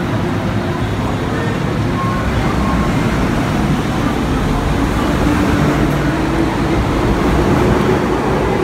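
Hong Kong MTR M-Train electric multiple unit pulling out of the platform and picking up speed: a steady rumble of wheels and running gear that grows a little louder, with a motor whine rising slowly in pitch in the second half. A couple of short faint beeps sound about two seconds in.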